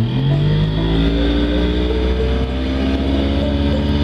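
70 hp Evinrude outboard motor accelerating hard: its pitch climbs quickly over about the first second, then holds nearly steady at speed. This is a test run at speed to check that the fuel pump, its screw just tightened, keeps the motor supplied with fuel.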